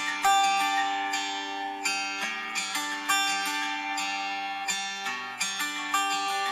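Background instrumental music: a plucked-string melody, its notes struck sharply and left to ring.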